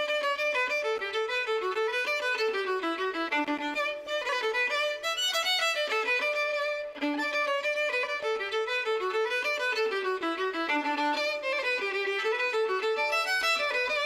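Background music: a fiddle playing a quick tune of running notes, in a Celtic style.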